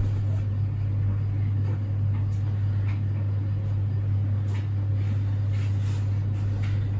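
A steady low hum, with faint soft rustles of cloth being smoothed and folded by hand.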